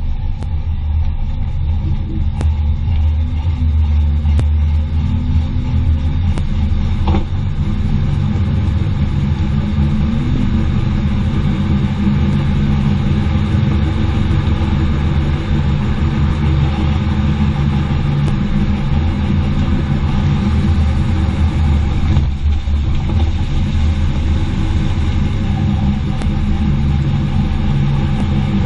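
Car running on the road, a steady low rumble of drivetrain and road noise, heard during a test drive for a chassis noise.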